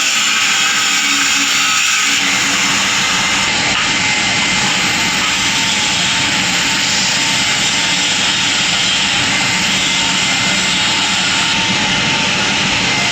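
Loud, steady hissing noise from metalworking equipment, running without a break.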